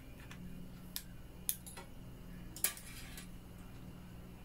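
A few small clicks and knocks of a ring light's USB cable plug being pushed into a power bank and handled, the loudest about two and a half seconds in.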